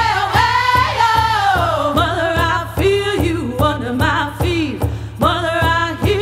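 Background music: a song with a sung vocal line over a steady beat.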